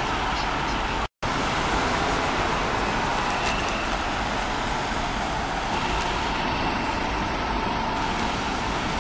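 Steady street traffic noise, cars passing and engines running, with a momentary cut to silence about a second in.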